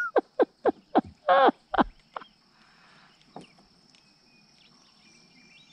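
Goose honking: a quick run of short calls with one longer honk in the first two seconds, then only a faint steady insect buzz.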